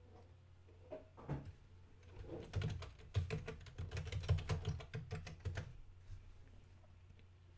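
Computer keyboard being typed on in a quick run of keystrokes lasting about three seconds as a password is entered, after a couple of clicks about a second in, over a steady low hum.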